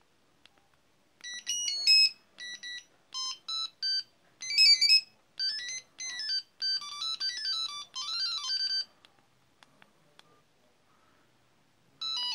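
Samsung R200s mobile phone playing a preloaded ringtone: a quick melody of short, bright electronic beeping notes lasting about seven seconds. Faint clicks follow, and the first notes of the next ringtone start near the end.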